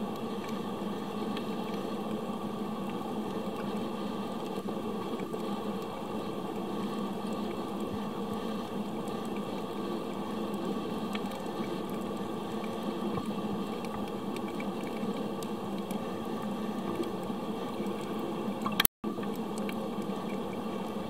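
Underwater ambience picked up through a camera's underwater housing: a steady, muffled rushing hiss with faint scattered ticks. Near the end, one sharp click is followed by a brief dropout.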